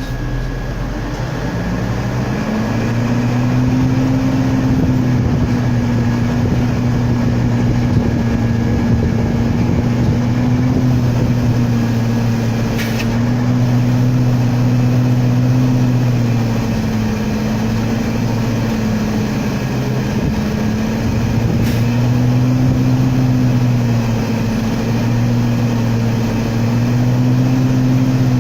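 Logging truck's diesel engine running hard, its pitch climbing over the first couple of seconds, then holding with slow rises and dips as the throttle varies.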